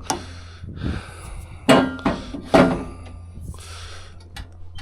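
A heavy welded steel tool clanking against the steel arm of a bale wrapper as it is pushed into place. There are a few metal-on-metal knocks, the two loudest about a second apart near the middle, the first ringing briefly.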